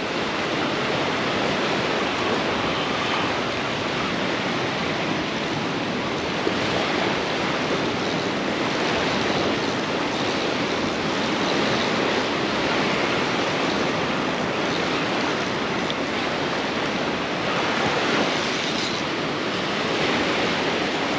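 Ocean surf washing steadily onto the beach, an even rushing noise with gentle swells in level.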